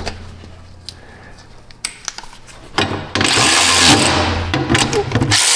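A few faint clicks, then from about three seconds in a cordless ratchet's motor runs steadily for a little over two seconds, driving a bolt on a cover plate under the excavator.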